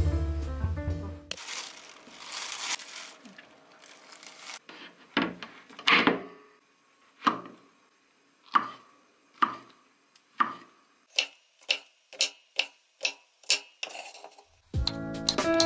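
Kitchen knife cutting large shiitake mushrooms on a wooden cutting board. The sharp knocks of the blade on the board come about a second apart at first, then quicker slicing at about three strokes a second. A few seconds of steady hiss come before the cutting.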